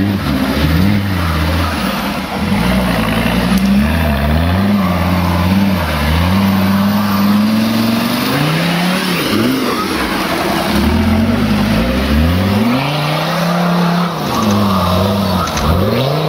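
Off-road trial 4x4 engines revving hard, the pitch dropping and climbing again and again as the throttle is worked to drive through deep mud.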